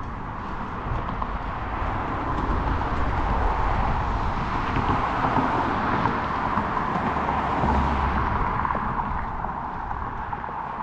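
Road traffic noise that builds over a few seconds and fades near the end, like a car passing, over a steady low rumble.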